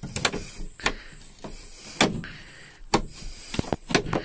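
Sliding side window of a VW Kombi camper van being opened by hand behind its mosquito screen: a series of sharp clicks and knocks from the pane and its frame, with a short scraping slide a little after two seconds in.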